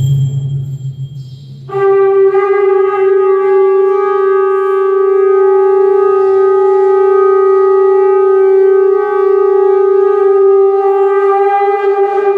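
A conch shell (shankh) blown for a temple aarti: one long, steady blast at a single pitch, starting about two seconds in and held for about ten seconds. A low sound comes just before it.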